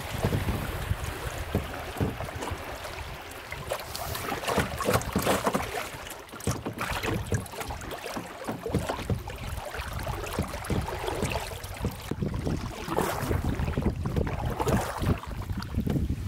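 River water splashing and lapping against a canoe's hull as it moves downstream, with the swish of wooden paddle strokes and wind buffeting the microphone.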